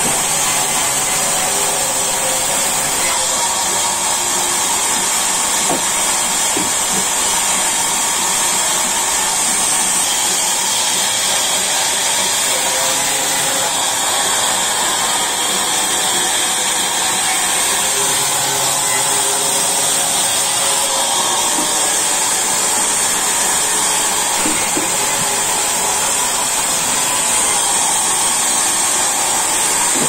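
Large sawmill band saw running steadily: a continuous machine noise with a high hiss that does not change.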